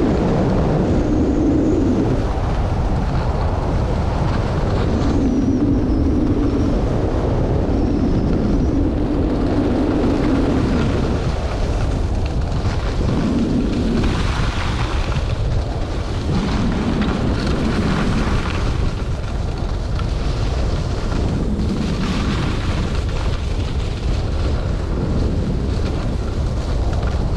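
Wind rumbling against the camera microphone of a skier moving downhill. Through it, skis hiss and scrape over groomed snow, swelling and fading with the turns.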